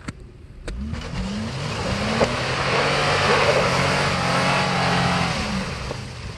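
Mitsubishi Pajero's engine revving as it pulls up a slushy, snowy track, its pitch climbing twice in the first couple of seconds and then held high under a steady hiss of tyres churning through slush and mud. The sound fades near the end as the load eases.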